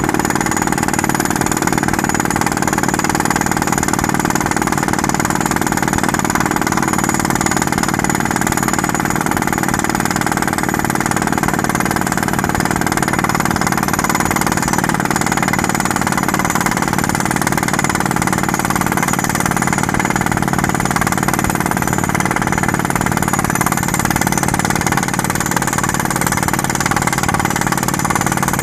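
Skid steer engine running steadily while working a rock drill attachment.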